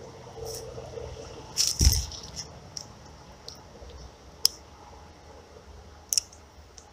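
Close handling noise of fishing tackle: rustling with scattered sharp clicks and knocks, the loudest a cluster with a dull thump about two seconds in, then a single click near the middle and a quick double click near the end.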